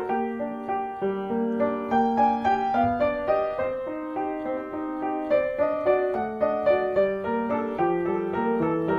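Background piano music: a slow melody of single notes over soft chords, each note struck and fading.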